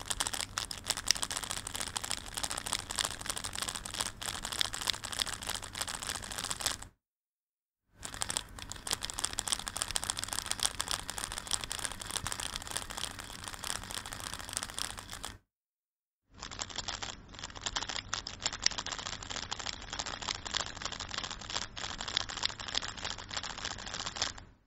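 Valk 3 speedcube being turned rapidly, its layers clicking in fast runs, in three takes with short breaks between. The first has its spring lubricated and no spring noise, and the second, with the spring unlubricated, has some spring noise. The third repeats the first through 48 kbit/s MP3 compression, which cuts off the top end and adds a metallic effect that is an artefact, not spring noise.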